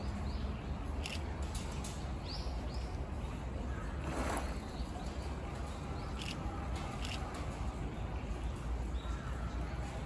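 Outdoor ambience: a steady low rumble with a few short bird chirps near the start and scattered faint clicks.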